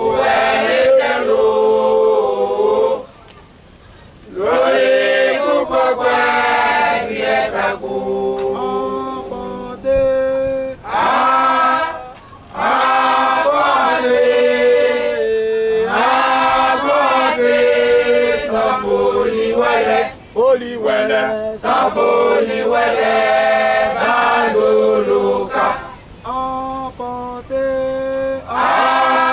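Congregation singing the opening hymn unaccompanied, in sung lines separated by brief pauses.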